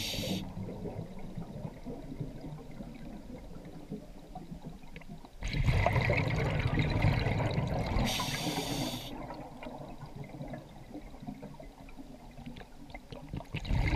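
A scuba diver breathing through a regulator underwater: a rush of exhaled bubbles about five seconds in that lasts a few seconds and another starting near the end, with a brief hiss of breath drawn through the regulator at the start and about eight seconds in.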